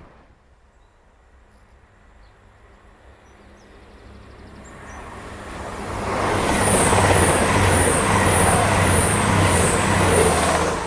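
An East Midlands Railway Class 222 Meridian diesel-electric multiple unit approaches and passes at speed. The drone of its underfloor diesel engines swells from faint to loud about halfway in and stays loud as the cars go by, with a regular high tick about twice a second. Faint bird chirps come before it arrives.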